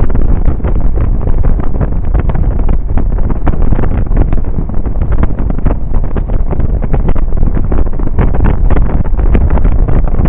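Wind buffeting the microphone of a camera on a Suzuki Burgman 650 scooter riding at road speed: a loud, constant rumble with a rapid, gusty crackle.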